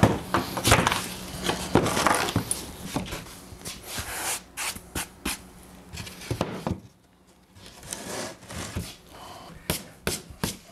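Plywood seat board being handled on a plywood worktable: a string of wooden knocks and taps with scraping and rubbing between them, busiest in the first few seconds and briefly quieter a little past the middle.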